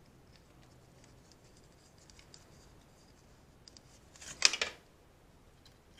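Small metallic clicks and scrapes of a hand tool working a motorcycle clutch cable end and its return spring into place, faint at first. A louder cluster of sharp clicks comes about four and a half seconds in.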